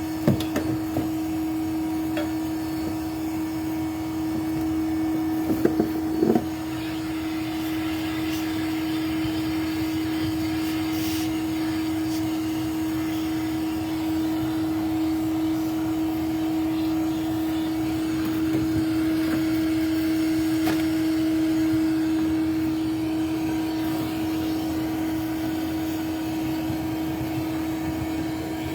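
A bee vacuum's motor running steadily with a constant hum during a live hive extraction. A few sharp knocks come about six seconds in.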